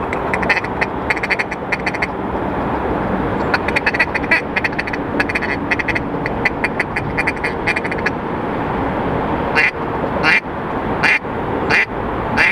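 Duck quacking in quick runs of short, evenly spaced quacks, then four louder, separate calls near the end, over a steady background rush.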